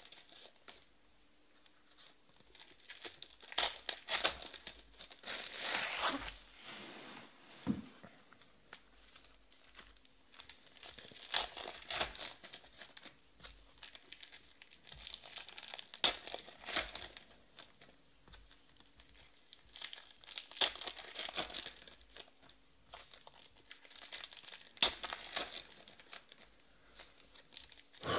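Plastic trading-card pack wrappers crinkling and tearing in irregular bursts as packs are ripped open and emptied, with a few sharp clicks.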